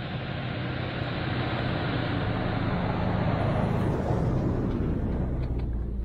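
A Nissan pickup towing a small off-road camper trailer drives past on packed snow: its engine runs with a steady low hum over the noise of tyres on snow. It grows louder to a peak three to four seconds in as it passes close, then eases off.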